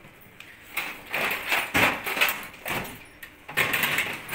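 Aluminium kitchen cabinet drawers sliding open and shut on their runners, several times in quick succession, with rough scraping and knocks.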